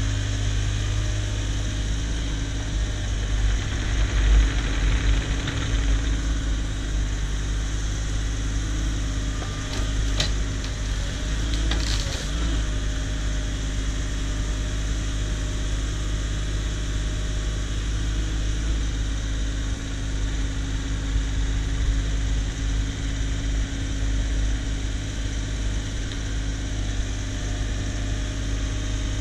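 Cat 304 mini excavator's diesel engine running steadily, louder for a couple of seconds about four seconds in. Brief knocks come about ten and twelve seconds in.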